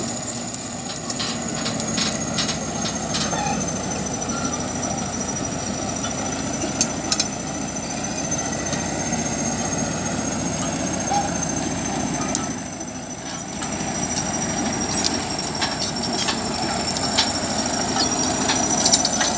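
Crawler tractor's diesel engine running steadily under load as it pulls a plow blade through the ground, with a thin high whine that drifts slowly up and down in pitch and scattered sharp clanks. The sound dips briefly about two-thirds of the way through.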